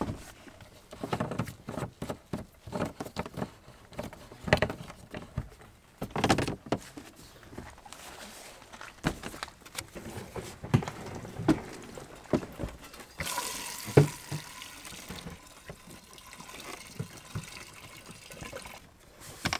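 Gasoline pouring from a plastic gas can's spout into an ATV's fuel tank: a steady gushing hiss through the second half. Before that come clicks and knocks as the can and spout are handled and fitted into the filler neck.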